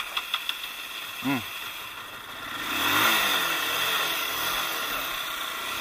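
A vehicle engine revs up about two and a half seconds in, then runs steadily.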